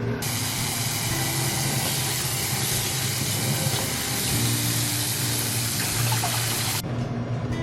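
Kitchen tap running in a steady stream for several seconds, starting and stopping abruptly, over a low steady hum.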